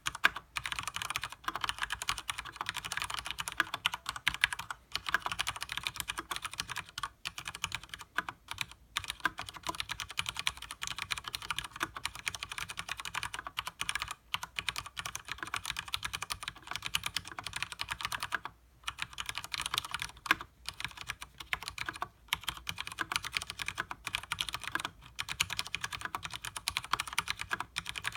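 Rapid, continuous typing on a Leopold FC900R mechanical keyboard with Cherry MX Speed Silver linear switches and double-shot PBT keycaps: a dense stream of key clacks, broken by a few short pauses.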